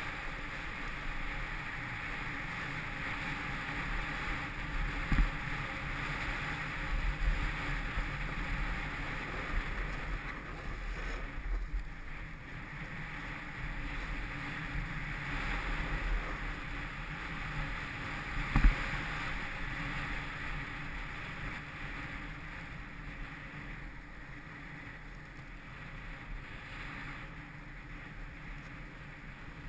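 Snowboard sliding and carving on groomed snow, a steady scraping hiss mixed with wind buffeting the action camera's microphone. A few sharp knocks stand out, the loudest about two-thirds of the way through, and the noise eases off near the end.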